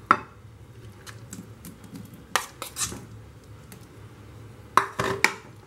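Metal spoon clinking and scraping against bowls as chopped mango cubes are spooned into mango puree, in a scatter of light clinks with sharper ones about two and a half seconds in and near the end.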